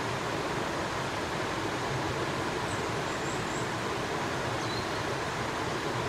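Steady rushing of river water.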